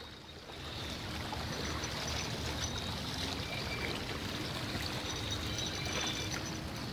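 Seawater washing against breakwater rocks: a steady rush of water.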